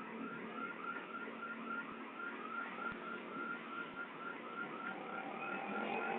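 Custom electronic vehicle siren sounding one of its nine tones: a rapid, evenly repeating pattern of short rising chirps, with a higher and a lower tone joining near the end.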